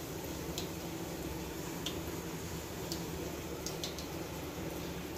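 Quiet background: a steady low hum with a few faint, scattered clicks.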